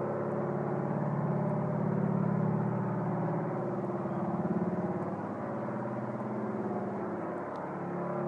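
Loud, steady low droning hum made of several layered tones, swelling a little about two seconds and four and a half seconds in. The uploader takes it for a strange noise coming from the sky.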